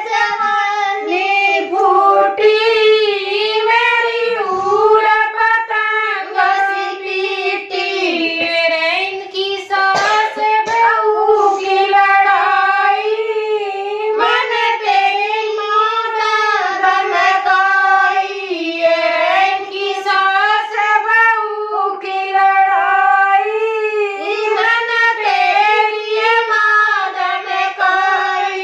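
Women singing a Haryanvi jakdi folk song, unaccompanied, in high voices with a continuous wavering melody.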